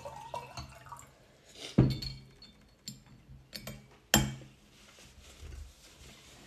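Tableware knocking and clinking at a dinner table: two sharp knocks about two seconds apart, with a few lighter clicks of a fork against a ceramic bowl between them.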